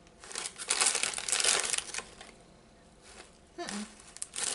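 Crinkling of a plastic snack bag of potato sticks being handled, lasting about two seconds and stopping, with a little more crinkling near the end.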